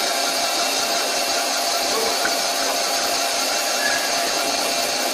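CNC lathe taking a facing cut: the spindle is running and the turning tool, fed by the manual handwheel, cuts across the end face of the bar stock. It makes a steady machining noise with no breaks.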